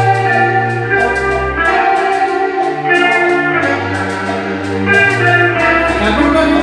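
Live church music: sustained keyboard chords over a bass line that moves to a new note every second or so.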